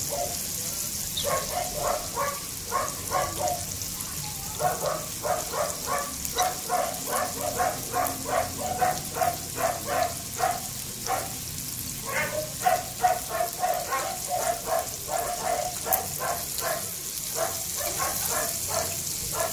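A dog barking rapidly and repeatedly, about three short yaps a second in runs of several seconds, over the steady sizzle of chicken skin deep-frying in a wok of oil.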